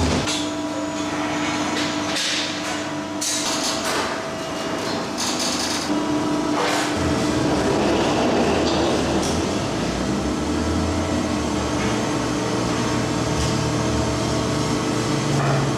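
Steel plates clanking and knocking as they are handled around a large press brake, several sharp metal knocks over a steady machine hum, which gives way to a steadier low rumble after about seven seconds.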